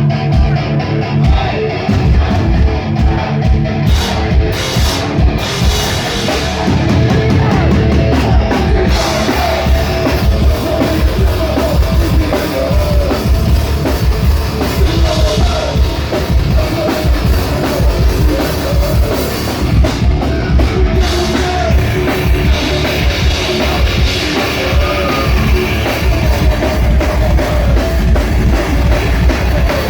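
A heavy metal band playing loud and live: fast drums and distorted electric guitars, with bits of singing. The sound is dense and densest from about seven seconds in.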